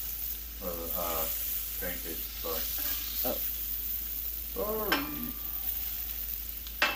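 Pancakes, eggs and sausage sizzling on a Blackstone flat-top griddle, a steady frying hiss. A few sharp taps are heard, the loudest near the end, with some low murmured voices in between.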